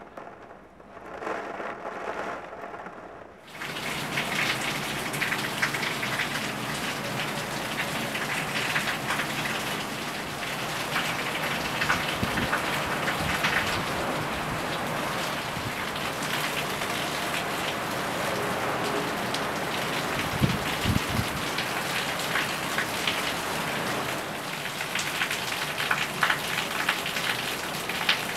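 Heavy rain falling steadily as a dense hiss of drops, coming up to full strength a few seconds in after a quieter opening. A brief low rumble is heard a little past the middle.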